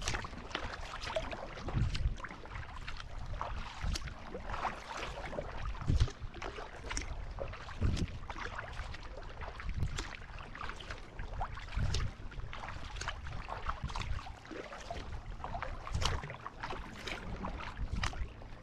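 Sea kayak being paddled: the blades dip in and splash in a steady rhythm about every second or two, with water slapping and lapping against the hull.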